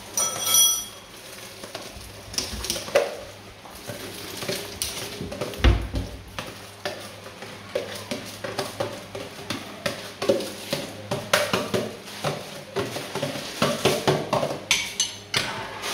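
Uncooked rice being washed by hand in a plastic container of water: grains and water swishing, with a busy scatter of small clicks and knocks and one dull thump about six seconds in.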